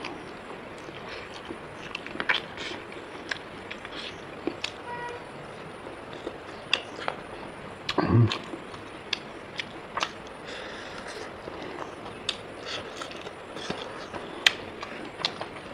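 A person eating rice and pork close to the microphone: wet chewing and mouth smacks with scattered sharp clicks over a steady background hiss, and one louder, low sound about eight seconds in.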